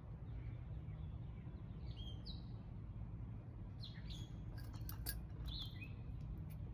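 Birds chirping: a few short, falling calls spaced a couple of seconds apart, over a steady low rumble, with a handful of sharp clicks a little past the middle.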